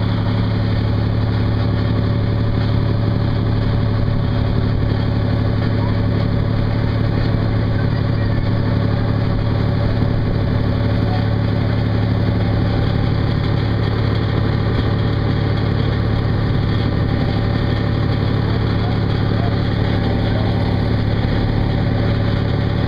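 Sailboat's engine running steadily under way, a constant low hum, with water rushing along the hull.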